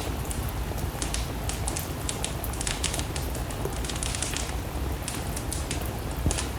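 Wood fire crackling, with irregular sharp pops and a louder snap near the end, over a steady hiss of rain.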